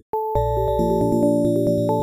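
8-bit chiptune music: a held synth melody and chords over a steady run of short drum ticks. It cuts out for an instant at the very start, then comes straight back in.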